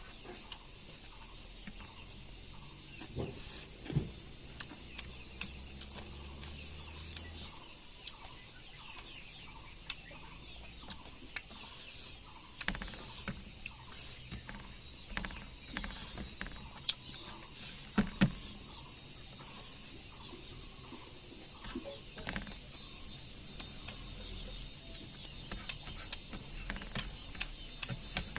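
Eating sounds: scattered soft clicks and smacks of chewing and handling food, with a few louder knocks about 4 and 18 seconds in. Behind them runs a steady high chirring of insects.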